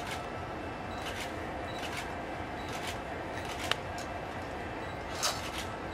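Camera shutter clicking several times, about a second apart, with one louder click near the end, over a steady quiet room hiss.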